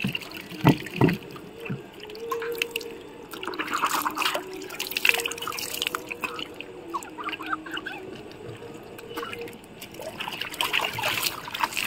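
Water splashed over the body by hand, dripping and pattering onto the floor, with two louder thumps about a second in.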